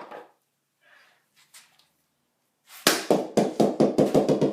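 A 15-pound bowling ball dropped onto a wooden water-bottle mount and bouncing, starting about three seconds in: a loud knock, then a rattle of knocks coming quicker and quicker with a ringing tone underneath.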